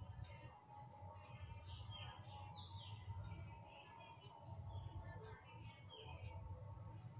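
Faint bird chirps, short falling calls repeated every second or so, over a low steady hum.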